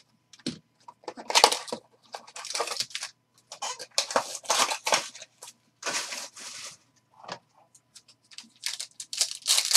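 Plastic wrap and cardboard packaging of a 2020-21 Donruss Choice basketball card box being torn open and crinkled by hand, in a run of short, irregular ripping sounds, loudest near the end.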